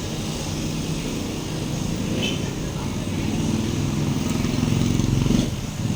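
A motor vehicle engine running, its low pulsing growing louder and then dropping away sharply about five and a half seconds in.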